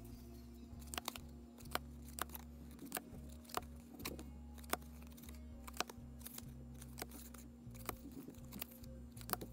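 Stiff cardboard trading cards handled and flipped through one by one: irregular sharp clicks and snaps of card against card, about one or two a second. Faint background music runs underneath.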